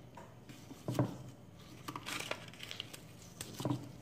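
Kitchen knife cutting raw chicken on a wooden chopping board: soft tearing of the flesh, with a few knocks of the blade on the board, the loudest about a second in and near the end.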